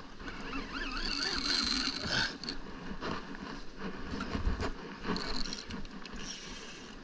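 Conventional fishing reel being cranked to winch in a hooked yellowtail against the line's pull, its gears and spool giving scrapes and irregular clicks.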